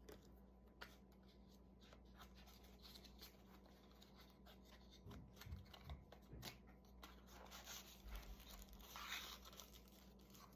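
Faint handling of a small paper-wrapped pouch: light clicks and soft paper rustling, busiest in the second half.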